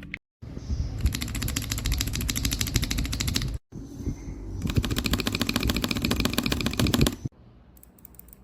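Keys on a keyboard with Gateron Magnetic Jade switches being hammered in very fast, even rapid-fire presses, in two bursts of about two and a half seconds each, each cut off suddenly.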